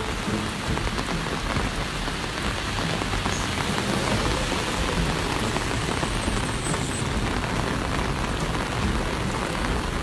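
Heavy rain pouring steadily onto a wet road and pavement, a dense, even hiss with no let-up.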